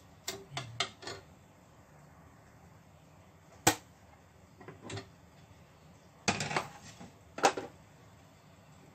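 A metal spoon clinking and scraping against a small enamel pot while a thick sauce is stirred. There are a few quick clinks in the first second, a sharp knock near the middle, and more knocks near the end.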